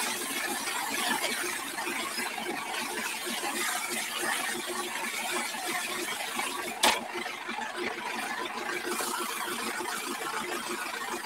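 Water from a garden hose spraying steadily against a tractor's tyre and bodywork, with one sharp knock about seven seconds in.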